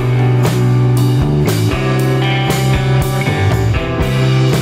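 Instrumental background music with a steady beat of about two drum hits a second.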